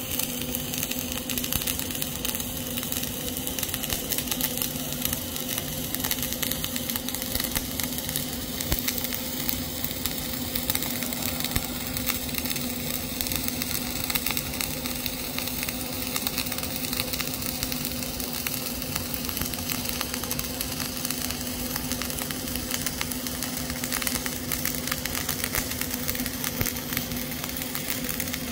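Flux-cored arc welding with CO2 shielding gas: a steady crackling, sizzling arc laying a cap pass, with a constant low hum underneath.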